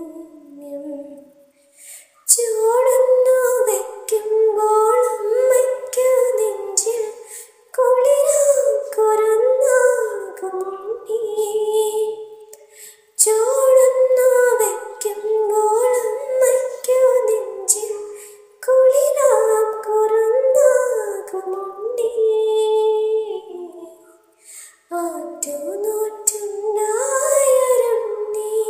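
A woman singing a Malayalam film song with no instrumental backing, in phrases of about five seconds with short pauses for breath between them.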